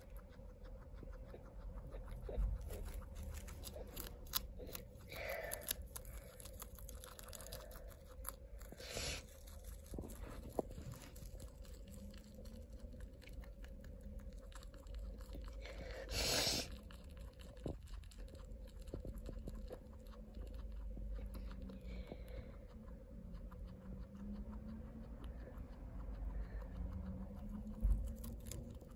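Guinea pig chewing a hand-held leaf of greens in quick small crunches. A brief, louder rustle comes a little past halfway.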